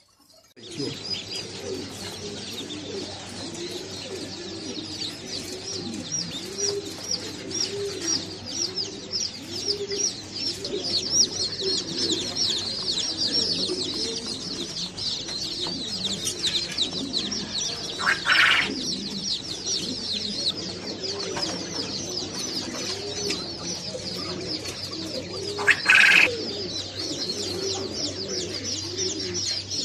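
Chorus of many caged birds: continuous low cooing from pigeons or doves under a dense stream of rapid high chirping from small birds. Two short, louder harsh sounds break through, a little past halfway and again near the end.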